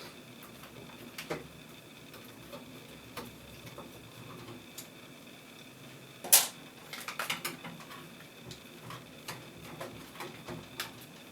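Small scattered clicks and light knocks of hands handling PC parts, the GPU riser cable and its mounting bracket, with one sharper click about six seconds in followed by a quick run of clicks.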